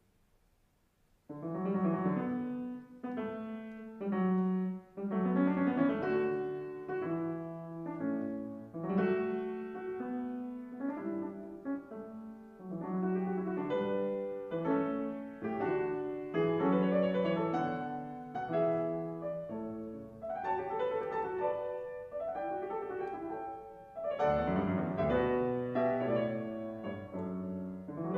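Solo classical piano played on a concert grand. The playing begins about a second in after a short silence and goes on in phrases with brief breaks between them.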